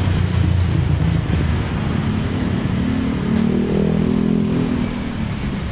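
Fuel-injected engine idling, then revved once about halfway through: its pitch climbs and falls back toward idle, as in a test rev during a tune-up.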